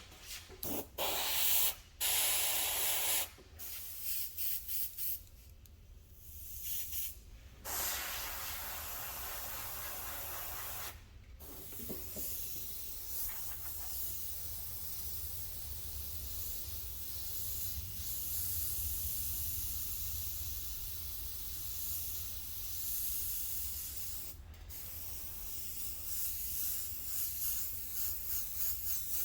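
Compressed-air paint sprayer hissing as paint is sprayed. It starts in short on-off bursts, then runs as long steady passes broken by brief pauses, and pulses quickly near the end.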